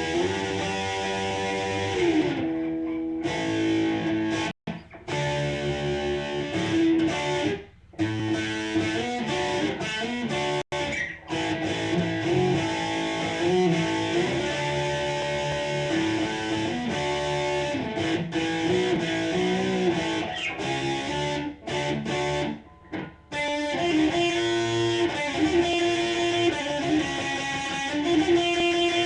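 Electric guitar ('Supreme') played through a Line 6 amp on its metal channel, picking out melodic lines of held, sustaining notes with a few short breaks between phrases. The guitar is out of tune.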